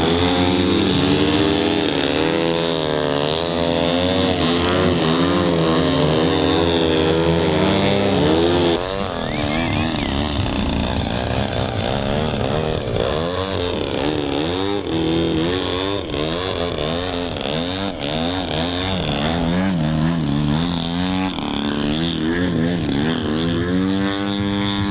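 Propeller engines of radio-controlled aerobatic model airplanes flying, one hanging in a nose-up hover, their pitch rising and falling constantly as the throttle is worked. The sound drops suddenly about nine seconds in and carries on at a lower level.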